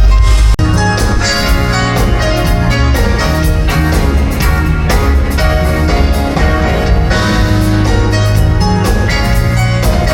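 Smooth jazz band music: keyboard over bass and drums, with a steady beat.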